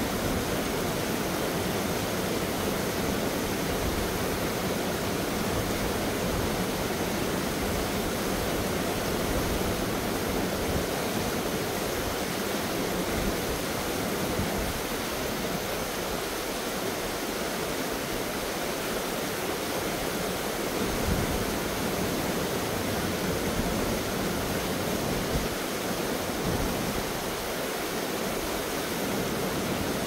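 Small waterfall spilling over sandstone into a pool: a steady rush of falling water.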